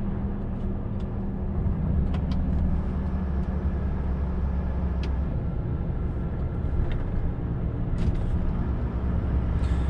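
In-cab running noise of a Volvo FH460 LNG semi-truck under way: the six-cylinder gas engine and road noise as a steady low hum, very quiet. A few faint ticks sound here and there.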